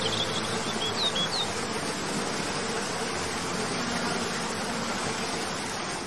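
Tiered forest waterfall cascading over rock ledges into a pool: a steady, even rushing of water, with a few short high chirps in the first second and a half.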